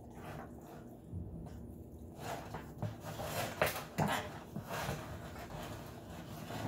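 A raw turkey being shifted by hand in a disposable aluminium foil roasting pan, the foil crinkling and crackling in a run of bursts from about two to five seconds in, with a couple of sharper clicks.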